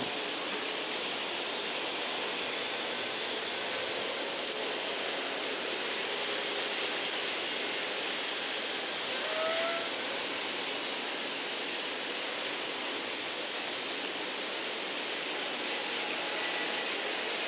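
Steady outdoor background hiss, like distant road traffic, with a few faint clicks and a brief faint rising chirp about nine seconds in.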